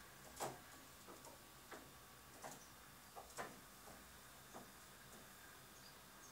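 Near silence broken by faint, irregular clicks and taps, about six of them, the strongest about half a second in and just before the halfway point.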